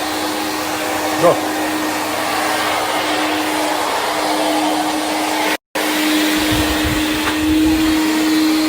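Backpack vacuum cleaner running steadily, a loud whirring whine with a constant hum. The sound cuts out for a split second a little past the middle.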